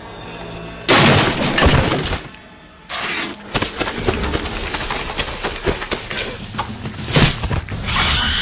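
Soft music gives way about a second in to a sudden loud crash of breaking and shattering. After a short lull comes a long run of crackling, clattering debris, with another sharp impact near the end. These are film sound effects of something smashing through a structure.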